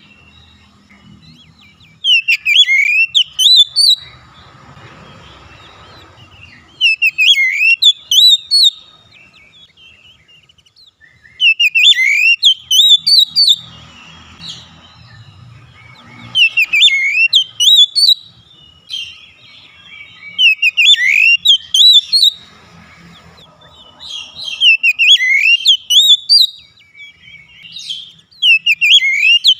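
Oriental magpie-robin singing: loud phrases of clear, fast, rising and falling whistled notes, each about two seconds long, repeated every four to five seconds with short pauses between.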